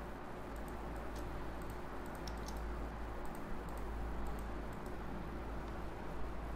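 Irregular clicks of a computer keyboard and mouse, over a steady low hum.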